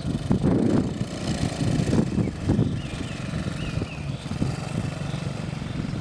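Small youth ATV's engine running as the quad is driven across grass, with the engine note rising and falling a little in the first few seconds before settling steady.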